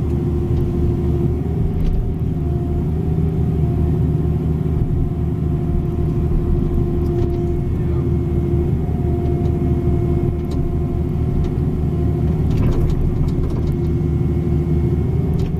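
A 305 mini excavator's diesel engine runs steadily under working load, with a constant hum and a higher tone that wavers slightly as the machine digs. A few faint clicks come near the end.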